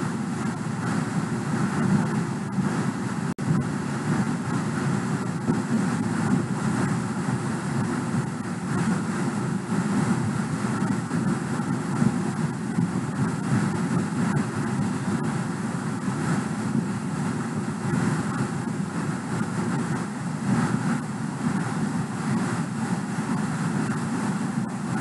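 Steady rushing noise, even throughout, with no clear tones, with a brief dropout about three and a half seconds in.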